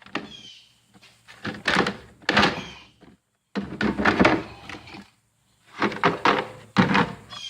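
Metal toolbox drawers sliding and knocking shut, with tools clattering inside, in three bursts of rattle and knocks.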